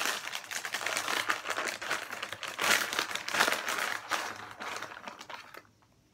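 Plastic snack bag of Tortrix crinkling and rustling as it is opened and handled, a busy crackle that fades out near the end.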